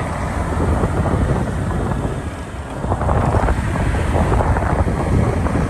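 Wind buffeting an action-camera microphone on a moving motorcycle: a continuous low rumble that dips briefly about two and a half seconds in, then picks up again.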